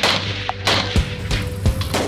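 Loud background music with a heavy, hard-hitting drum beat.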